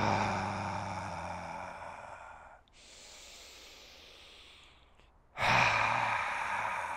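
A man breathing out loudly through an open mouth on a voiced "haa", a lion's-breath exhale of breathwork, twice: each exhale begins with his voice and fades into a breathy rush. Between them comes a quieter, longer inhale.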